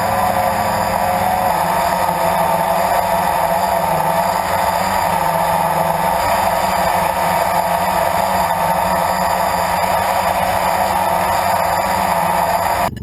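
Blade 350 QX2 quadcopter's brushless motors and propellers running in flight: a steady whine of several tones that waver slightly. It cuts off suddenly near the end.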